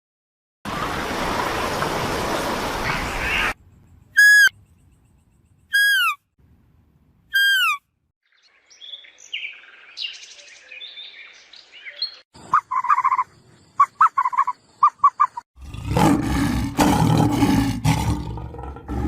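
A string of different animal calls, one after another: first a harsh, noisy sound lasting about three seconds, then three short calls that fall in pitch, about a second and a half apart, then faint chirping, a quick run of short clipped calls, and near the end a loud, rough, noisy call.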